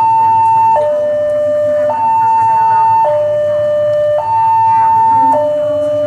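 Railway level-crossing warning alarm sounding, alternating evenly between a high tone and a lower tone, each held a little over a second. It is the signal that a train is approaching and the crossing barriers are coming down.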